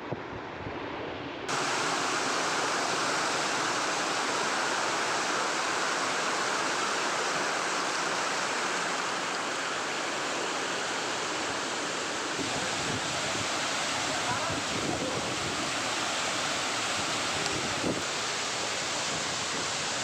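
Waterfall water rushing down steadily, a dense even roar of falling water that comes in suddenly, louder, about a second and a half in, over quieter water noise before it.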